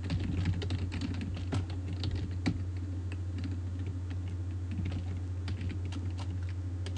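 Typing on a computer keyboard: a quick run of key clicks over the first few seconds, then sparser single taps. A steady low hum runs underneath.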